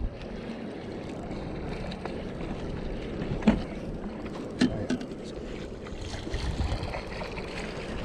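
Water lapping and splashing beside a small fishing boat as a hooked walleye is played to the side and netted, with a few sharp knocks about three and a half seconds in and twice more about a second later.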